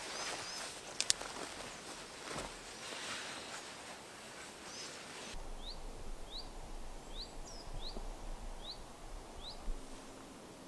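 Outdoor woodland background with soft noise and a couple of sharp clicks, then, after about five seconds, a small bird giving a short rising chirp six times at an even pace, a little under a second apart.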